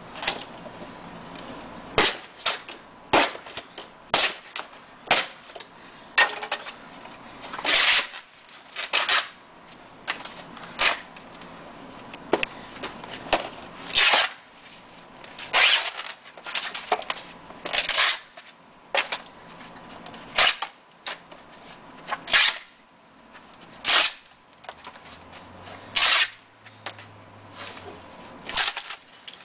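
Painted canvases on wooden stretcher frames being smashed and broken apart: a long run of sharp cracks and bangs of splintering wood, about one a second.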